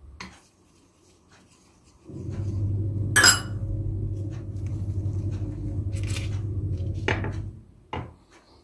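A metal teaspoon clinks against a ceramic bowl, among a few lighter taps and clicks of handling. A steady low hum starts about two seconds in and stops about five seconds later.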